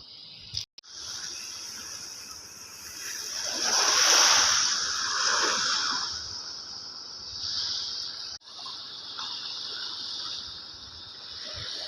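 Shallow water sloshing and splashing, rising to a surge about four seconds in, over a steady high hiss.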